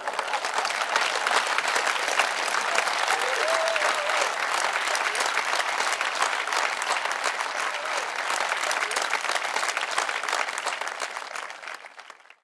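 Live audience applauding, a dense steady clatter of many hands clapping that fades away near the end.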